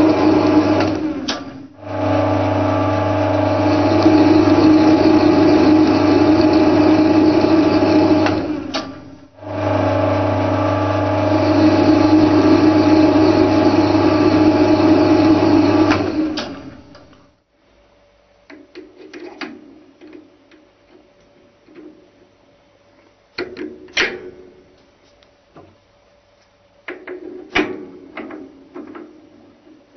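Centre lathe running under power, its motor and gearing giving a steady hum while a single-point tool cuts an external screw thread on a metal bar, with two brief breaks. About seventeen seconds in the lathe stops, and the rest is scattered light clicks and knocks of tools being handled on the machine.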